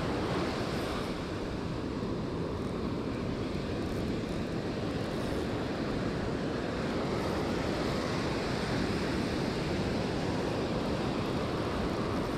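Ocean surf breaking on a sandy beach: a steady, unbroken rush of waves, with wind on the microphone.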